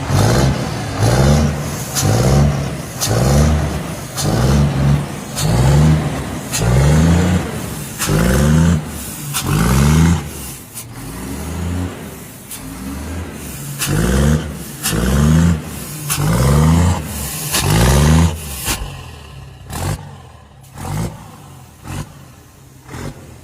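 Scania truck's diesel engine revved in quick repeated blips, about one a second, each surge rising and falling in pitch. After about eighteen seconds the revving stops and the engine runs quieter, with a few smaller blips.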